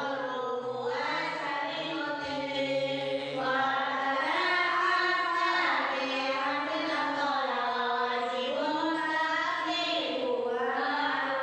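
A man's voice chanting a slow melody, holding long notes that glide up and down between pitches, with hardly a break.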